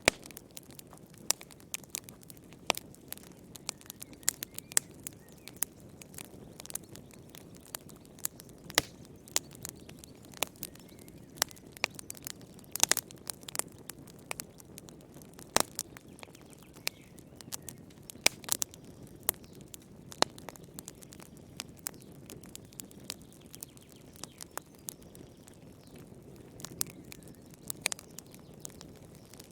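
Wood fire crackling in a fireplace: irregular sharp pops and snaps, several a second at times, over a steady low rush of the flames.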